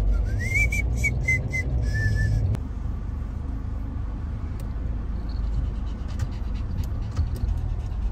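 A person whistling a short tune in clear notes for about the first two and a half seconds, over the steady low road rumble inside a moving car; after the whistling stops only the road rumble carries on.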